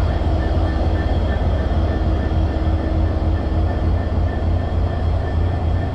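Bangladesh Railway's EMD GT42 diesel-electric locomotive standing with its diesel engine idling: a steady low rumble with a faint high whine over it.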